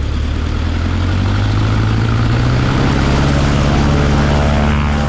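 A 1949 Cessna 140A's engine and propeller running up at high power for the pre-takeoff run-up. The pitch climbs slightly over the first couple of seconds, then holds steady and loud.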